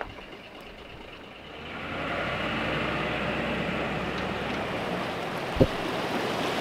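Water rushing and splashing off a boat trailer as it is pulled up the ramp out of the lake. A low vehicle rumble runs underneath, and there is a single sharp knock about five and a half seconds in.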